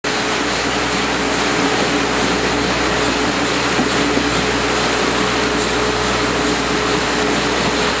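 Steam locomotive C58 239 working up the grade toward the summit, its exhaust mixed with the train's wheels on the rails: a steady, loud rush with a faint continuous tone, heard from a coach window.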